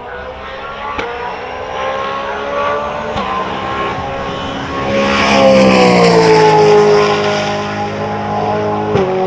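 Brabham BT62 race car's V8 at full throttle, pitch climbing, then going by loudest about five seconds in with the pitch falling as it passes. A sharp gear change comes near the end.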